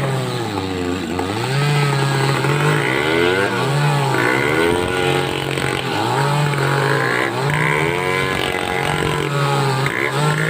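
Homemade two-stroke chainsaw running while sawing timber, its engine speed rising, holding and dropping again every second or two.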